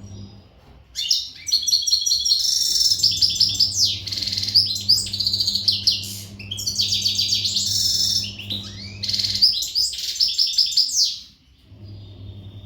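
European goldfinch singing a long, loud, fast twittering song of rapid trills and buzzy notes, with a short break midway; it is the full-power song of a male in breeding condition.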